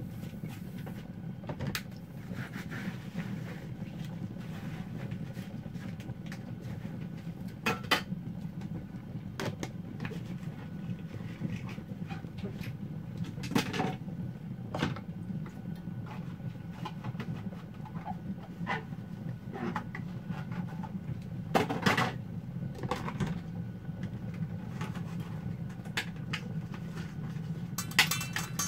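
Dishes, containers and utensils being handled and put away at a kitchen dish rack: scattered knocks and clinks, several sharp ones, over a steady low hum.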